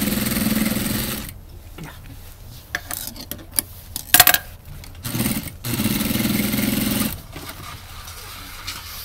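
Hakari industrial single-needle lockstitch sewing machine stitching through four layers of leather in two runs at an even, rapid stitch rate: the first stops about a second in, the second runs for about two seconds after a brief start near the middle. Between the runs come a few sharp clicks and knocks as the work is handled.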